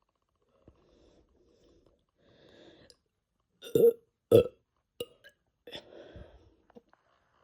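Two short, loud burps about half a second apart, a little under four seconds in, brought up by carbonated Fanta drunk on a full stomach, with softer sounds before and after.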